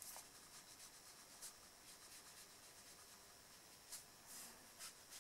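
Faint scratching and dabbing of a water brush's bristle tip on cardstock, with a few soft ticks as the tip touches down.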